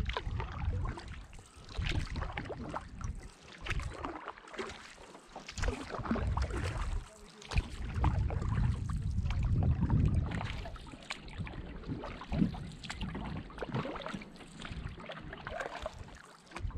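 Canoe paddle strokes: water splashing and dripping off the blade with small knocks, as the canoe is paddled. Wind buffets the microphone on and off with a deep rumble.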